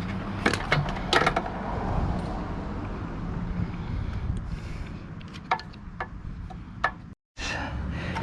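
Scattered metallic clicks and knocks of hand tools and loose engine parts being handled, a few sharp taps over a steady low hum.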